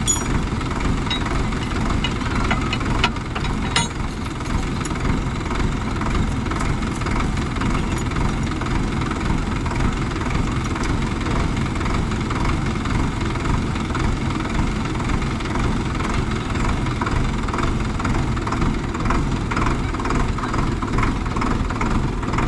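Farm tractor diesel engine idling steadily, with a couple of faint clicks about three seconds in.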